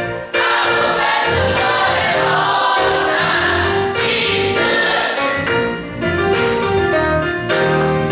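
Adult church choir singing a gospel song together, accompanied by an electric keyboard.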